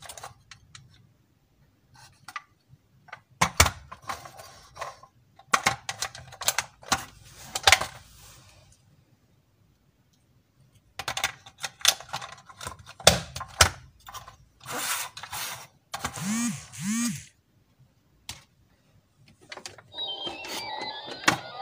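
Hard plastic toy vehicles and figures being handled: scattered clicks, snaps and clattering of plastic parts, with quiet gaps between. About 20 seconds in, a button on the toy jet is pressed and it starts an electronic sound effect with beeps and a rising tone.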